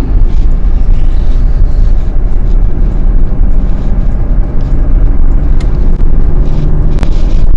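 Car travelling along a road, heard from beside its open side window: steady road and engine noise under a heavy rumble of wind on the microphone. A sharp click about seven seconds in.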